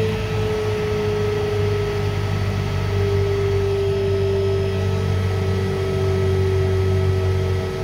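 Electric motor running on a variable frequency drive, with a steady electrical hum and a whine that slowly falls in pitch. The drive is feeding it low voltage and the motor is drawing heavy current, apparently overloading it.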